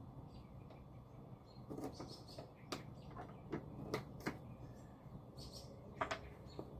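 A few scattered light clicks and knocks of wooden pieces being handled and fitted, with faint high chirps.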